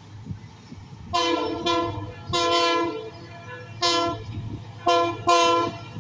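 Horn of an approaching passenger train sounded in a series of about six short blasts, over a low rumble.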